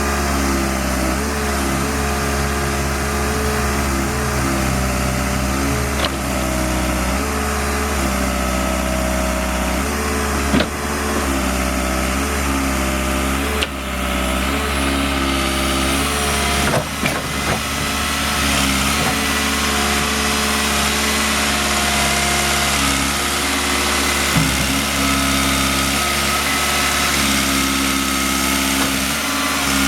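Case 580SM backhoe's diesel engine running, its note rising and dipping again and again as it is loaded and revved. A few sharp knocks or clanks come through, around a third of the way in and again a little past the middle.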